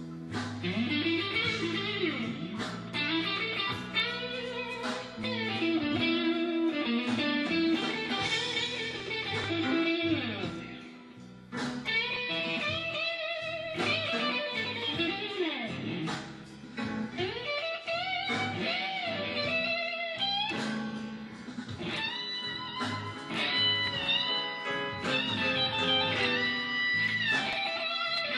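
Fender Stratocaster electric guitar playing an instrumental blues solo, with bent notes sliding up and down and higher held notes near the end.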